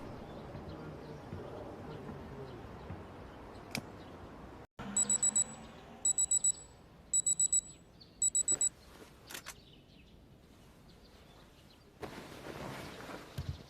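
Digital alarm clock beeping: four quick bursts of four high-pitched beeps each, starting about five seconds in.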